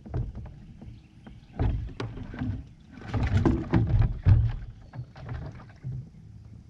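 Irregular knocks and thumps of paddle and gear against a sit-on-top kayak's hull as the angler moves about in his seat, loudest in a cluster about three to four and a half seconds in.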